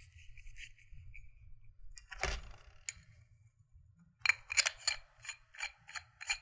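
Two-piece paintball barrel being screwed together and threaded into a Planet Eclipse Etek 5 marker. One louder click a little over two seconds in, then from about four seconds in a regular run of light metal clicks, about four a second, as the barrel is turned.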